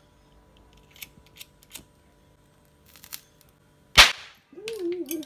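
Several faint clicks of a disposable lighter being struck, then one sharp, loud crack as a small homemade blasting cap's lead styphnate primary charge goes off. A man's voice is heard reacting near the end.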